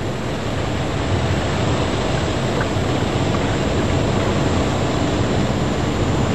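A steady rushing noise with no clear pitch or rhythm, slowly growing louder.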